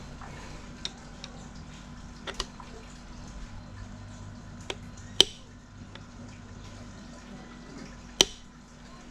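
Scattered sharp clicks and knocks of small engine parts and hand tools being handled, over a low steady hum. The two loudest knocks come about five and eight seconds in.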